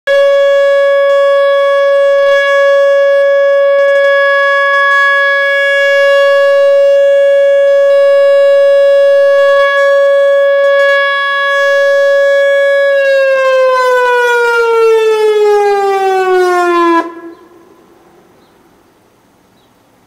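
Whelen WPS-2902 electronic warning siren sounding a steady high tone, the alert signal of its test, then gliding down in pitch for about four seconds and cutting off abruptly.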